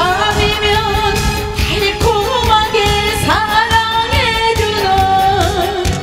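A woman singing a Korean pop ballad live into a microphone, over amplified backing music with a steady beat.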